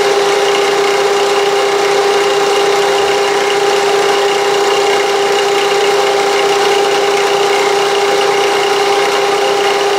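Milling machine running steadily, its 45-degree chamfering end mill taking a light pass of a few thousandths along the edge of an aluminium block. A constant machine hum with a steady tone over a hiss.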